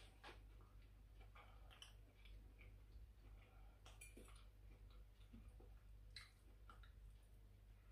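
Near silence: faint chewing, with a few soft clicks of a fork on a plate.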